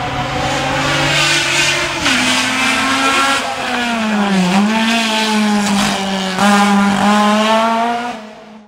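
Race car engine running hard at high revs as it passes, its pitch dropping and climbing again with gear changes. It is loudest in the last few seconds, then fades and cuts off at the end.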